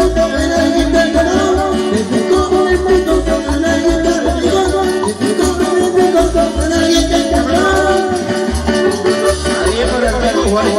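Latin dance music played loud through a sound system, with a steady pulsing bass beat under sustained melody lines.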